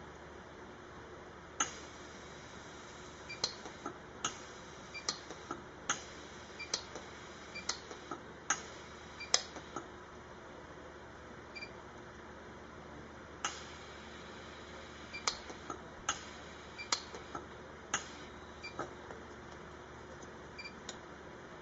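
Lampert PUK 3S pulse arc welder firing single pulses into a silver seam on its lowest gap-filling setting, each pulse a sharp click. About twenty clicks come at irregular spacing, with a pause of a few seconds midway.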